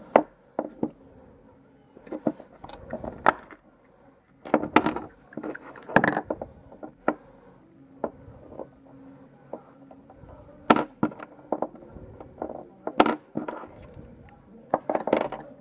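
Irregular clicks and knocks of small plastic toy parts being handled: a yellow Kinder Surprise capsule being opened and a Minion figure's pieces fitted together on a table.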